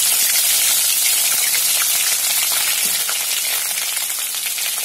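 Hot groundnut oil sizzling steadily in a pan, with many small crackles and pops, heated and ready for frying.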